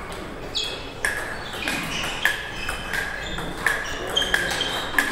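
Table tennis ball clicking in a rally, struck back and forth off rubber bats and bouncing on the table: about ten sharp ticks at roughly two a second.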